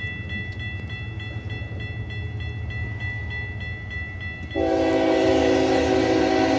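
Diesel locomotive air horn sounding one long, loud blast that begins about four and a half seconds in, over the steady ringing of a level crossing's warning bell.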